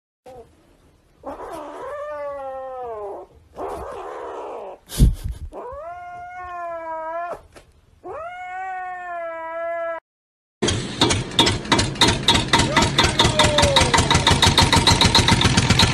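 Kitten giving four long, drawn-out calls that bend and fall in pitch, with a sharp knock about five seconds in. After a brief gap, a louder, rapidly pulsing sound takes over for the last five seconds.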